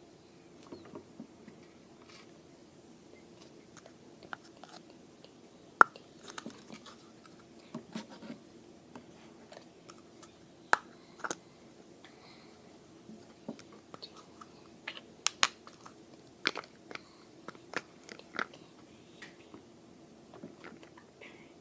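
Slime being squeezed and worked by hand, giving irregular sharp crackles and pops, the loudest about six and eleven seconds in.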